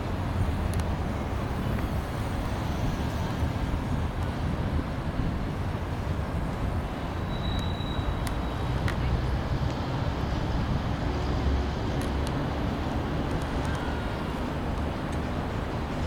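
Steady low outdoor rumble with no distinct events, with a brief faint high-pitched tone about halfway through.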